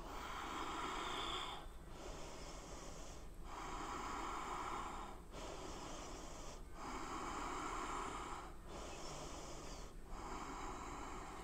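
A woman breathing audibly through slow, even breaths in and out, about seven breaths, each lasting a second and a half to two seconds, with short pauses between them.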